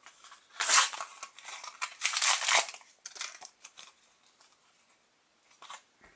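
Paper football stickers being slid and flicked against each other in the hand: dry papery swishes, two louder ones in the first three seconds, then a few light ticks.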